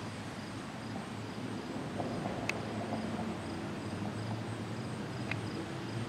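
Outdoor ambience: a steady low hum of distant traffic with insects chirping faintly and evenly, and a few faint clicks.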